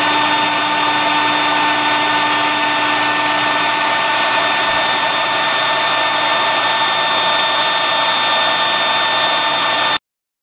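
Electric blower on a wood gasifier's outlet running steadily, a motor whine with several fixed tones over the rush of gas being drawn through and blown out. It stops abruptly near the end.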